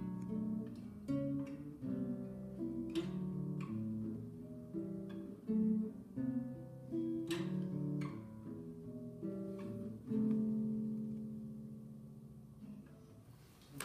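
Solo classical guitar played fingerstyle: plucked notes and chords, ending on a chord about ten seconds in that rings on and slowly fades away.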